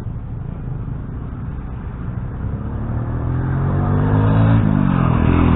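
Vehicle engine drawing closer: a low rumble at first, then an engine hum growing steadily louder from about halfway through, its pitch sliding down near the end.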